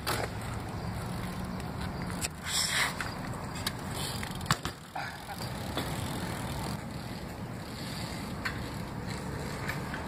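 Cult AK BMX bike being ridden: a steady rolling rumble with scattered clicks and knocks, and a short rushing noise between two and three seconds in.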